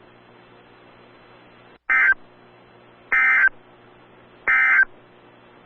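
Emergency Alert System end-of-message signal: three short bursts of SAME digital data tones, each about a third of a second long and a little over a second apart, marking the end of the alert. Faint radio hiss and hum between the bursts.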